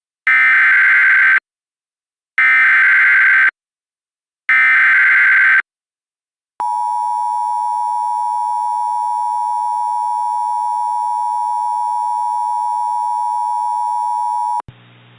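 Emergency Alert System header announcing a severe thunderstorm warning: three short bursts of warbling SAME data tones about a second apart, then the two-tone EAS attention signal held steady for about eight seconds and cut off abruptly. A faint hiss starts just before the end.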